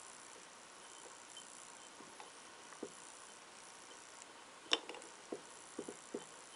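Faint taps and clicks of fingers handling a small glass jar while pressing a glued paper cutout against its inside wall. The sharpest click comes near the end, followed by a few lighter ones.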